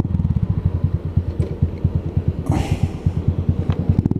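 125cc motorcycle engine running with a steady, rapid low pulsing. A brief hiss comes in about two and a half seconds in.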